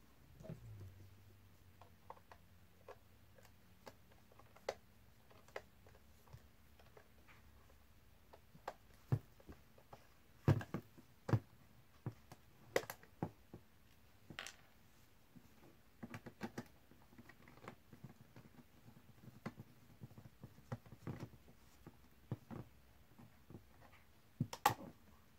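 Scattered light clicks and taps of a screwdriver working screws out of the hard plastic back of a small solar panel, with a few sharper knocks of the parts being handled.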